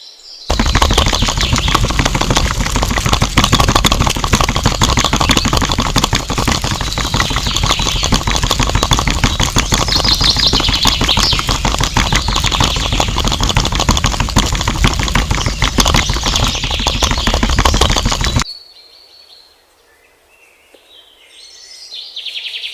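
A small homemade motorized model machine running with a dense, steady rattle, which cuts off suddenly near the end. Birds chirp in the quiet that follows.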